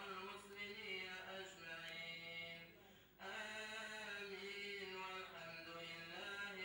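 Male voices chanting in long, held melodic lines, in the style of Moroccan sama' devotional chant, with a brief pause about three seconds in.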